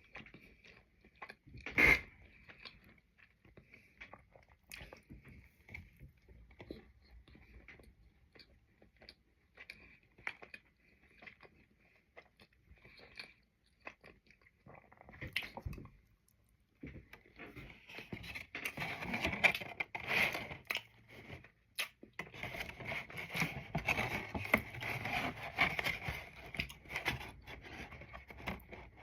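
A person chewing and eating soft strawberry shortcake crunch cookies, with small mouth clicks and one sharp louder click about 2 seconds in, then denser, crackly chewing and handling noise for most of the last ten seconds.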